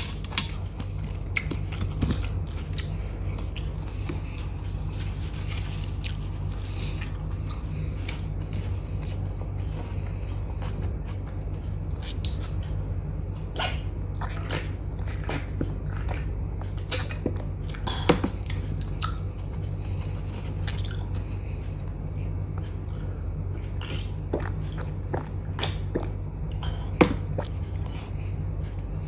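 Close-miked chewing and biting of food, with scattered short sharp clicks and crunches, over a steady low hum.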